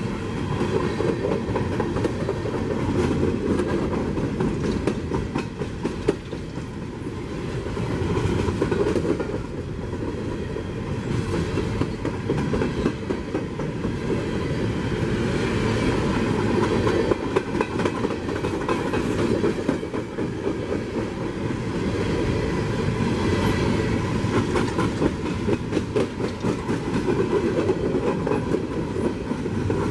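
Railroad cars of a passing train rolling by, the wheels clicking steadily over the rail joints with a continuous rumble underneath.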